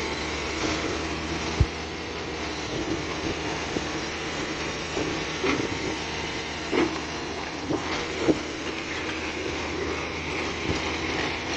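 Tracked excavator driving on its steel crawler tracks: the diesel engine runs steadily under the clatter and squeak of the track links, with a few sharper clanks scattered through, one near the start and several in the middle.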